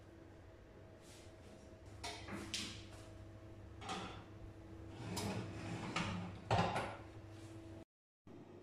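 A metal tart pan and a wire oven rack scraping and knocking as the pan is pushed into an oven, in several separate scrapes with the loudest near the end, over a steady hum that starts about two seconds in.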